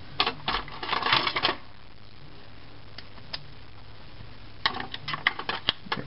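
Two flurries of small, sharp metallic clicks and clinks from a screwdriver and its bits being handled and swapped: one at the start and one near the end, with quiet in between.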